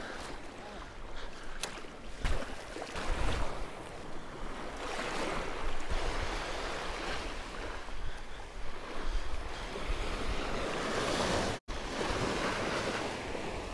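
Small waves washing onto a sandy beach in swells, with some wind on the microphone; the sound drops out for an instant near the end.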